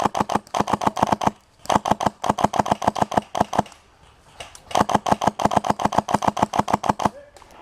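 Classic Army G3 airsoft rifle with a Polar Star Fusion Engine on compressed air, firing three long full-auto bursts of about ten sharp shots a second, separated by short pauses.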